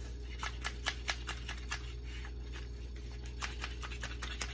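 Plunger of a hand-pumped salad dressing mixer being worked up and down in its plastic cup, clicking about four to five times a second as it whips the dressing. A steady low hum runs underneath.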